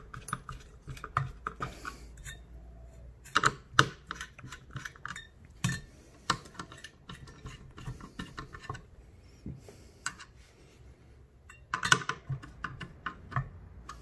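Screwdriver tightening the spring-loaded mounting screws of a tower CPU cooler onto a motherboard: scattered metallic clicks and clinks of the tool on the screws and bracket, with a few louder knocks, about 4 s in, near 6 s and near 12 s.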